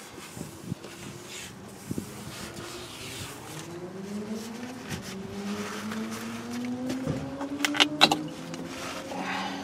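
A motor vehicle's engine running nearby, its pitch rising slowly and steadily for several seconds as it picks up speed. A few sharp clicks come about eight seconds in.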